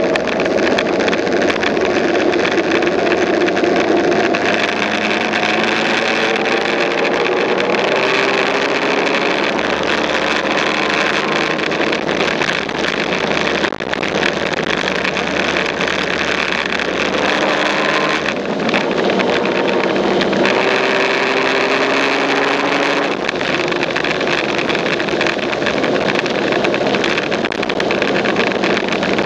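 Motorbike engine running at cruising speed with steady wind rush. The engine note climbs slowly several times as it accelerates.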